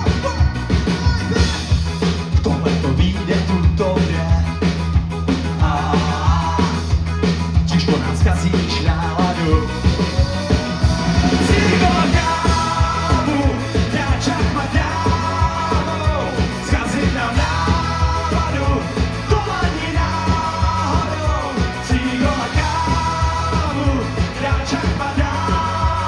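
Ska-punk band music with a steady drum beat and bass. From about twelve seconds in, a short melodic phrase repeats about every two seconds.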